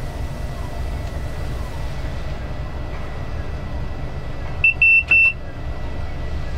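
Diesel locomotive engine running with a steady low rumble, heard from the cab. About four and a half seconds in, three short high-pitched electronic beeps sound close together.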